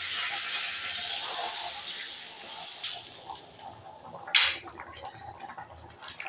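Mustard seeds spluttering in hot oil for a curry tempering, a dense crackling sizzle that fades out after about three seconds. About four seconds in comes one sharp metal knock of a spoon against the pot, then faint clinks of stirring.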